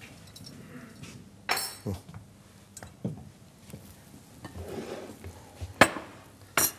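Kitchenware being handled on a counter: a few separate sharp clinks and knocks of pots, a bowl and utensils, the loudest about a second and a half in and near six seconds.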